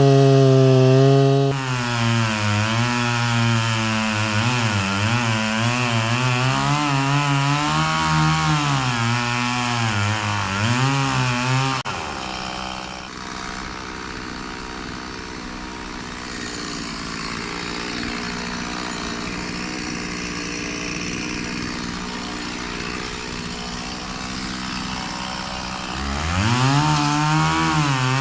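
Two-stroke chainsaw cutting into the trunk of a dead white oak, its engine at high revs with the pitch wavering as it bogs and recovers under load. About twelve seconds in it drops to a quieter, steady idle, and near the end it revs back up.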